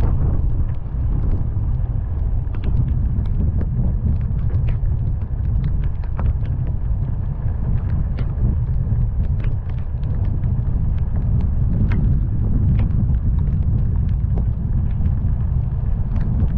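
Car driving through heavy rain: a steady low rumble of road and wind noise, with scattered sharp ticks of raindrops striking.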